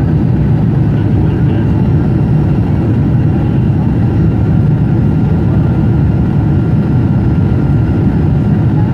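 Steady, loud low rush of a Boeing 747-400 airliner heard from inside the passenger cabin: engine and airflow noise that holds even throughout.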